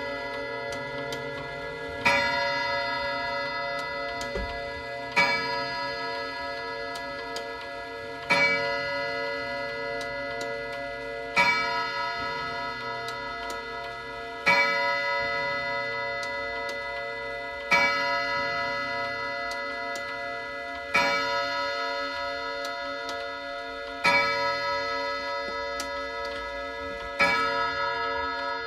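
Mechanical wall clock striking twelve on its gong rods: single strokes about three seconds apart, nine in all, each ringing on and slowly dying away, with the pendulum ticking beneath.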